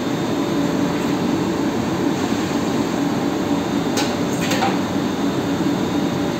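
Steady rushing hum of commercial kitchen fans around a wok range, with two sharp clicks about four seconds in.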